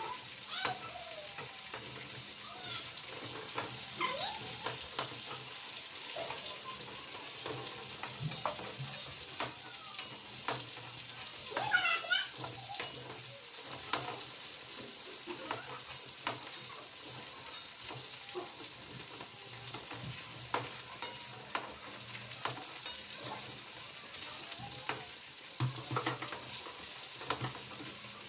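Hot oil sizzling steadily in a cooking pan, with a metal spatula scraping and clicking against the pan again and again as pieces of fried meat are stirred and lifted out.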